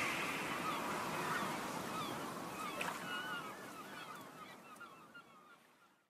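Short bird calls, scattered chirps and honks, over a steady hiss; the whole sound fades out to silence near the end.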